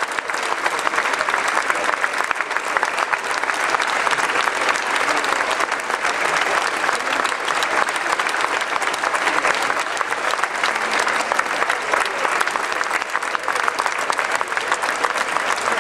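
Large audience applauding steadily, a dense, unbroken clatter of many hands clapping.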